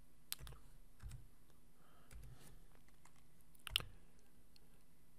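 A few scattered, faint clicks of a computer keyboard and mouse as dimension values are entered, the loudest about two-thirds of the way through, over a faint steady low hum.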